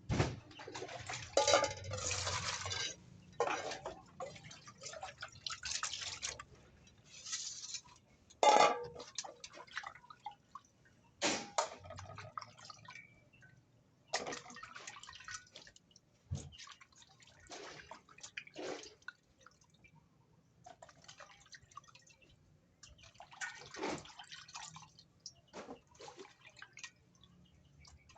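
Raw chicken meat being washed by hand in water: irregular splashes, drips and wet squelching handling. The louder splashes come in the first few seconds and again about eight seconds in.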